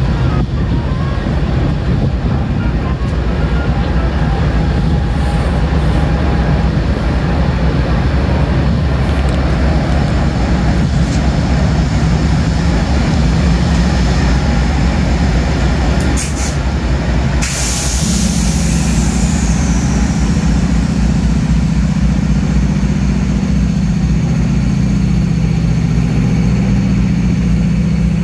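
Diesel passenger locomotive running alongside a platform with a steady low rumble and hum. About seventeen seconds in comes a sudden loud hiss of released compressed air, fading over a few seconds, typical of a train's air brakes. After it the engine's hum is a little stronger.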